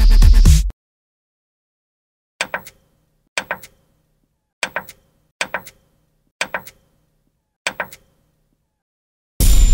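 Electronic dance music cuts off under a second in. After a moment of silence come six short knock-like pop sound effects, each a quick double or triple click, about a second apart, one for each animated logo popping onto the screen. A loud burst of noise with a high ringing tone starts just before the end.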